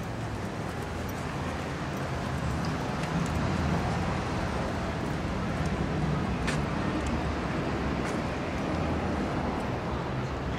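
Steady wind noise buffeting the camera microphone, a low wavering rumble with a thin hiss above it.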